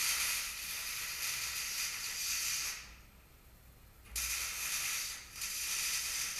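Electric arc welding on steel: a steady sizzling crackle from the arc for about three seconds, then, after a short pause, two shorter runs of the same sound.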